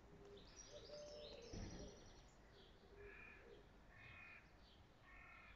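Faint wild birdsong: high chirping from small birds, then three harsher calls about a second apart.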